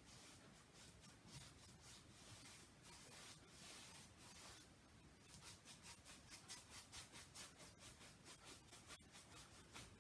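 Paintbrush bristles rubbing back and forth on a canvas, working acrylic paint across it: faint, quick swishes, about three a second, growing stronger in the second half.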